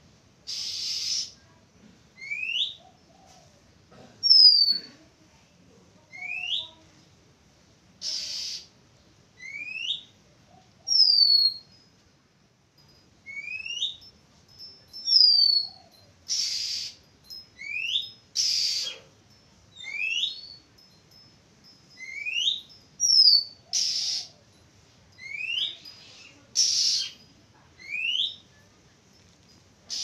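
Oriental magpie-robin calling. It repeats a rising whistled note about every two seconds, with a few higher falling whistles and short harsh rasping notes in between.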